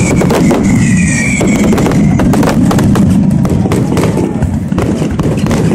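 Fireworks bursting in quick succession, a continuous loud barrage of crackling bangs over a low rumble, with high whistles in the first second and a half.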